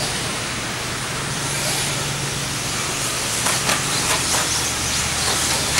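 Radio-controlled off-road buggies racing on a dirt track over a steady background din, with a run of short ticks and knocks as the pack comes through about three and a half seconds in.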